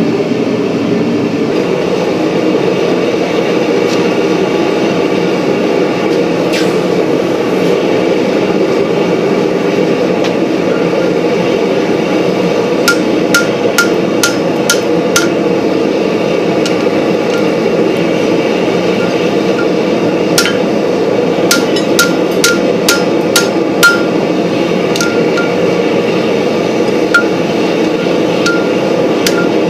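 Hammer blows on hot steel over an anvil, each strike ringing clearly, coming in quick runs from about halfway through, with a few more near the end. Under them a steady, loud rushing noise runs throughout.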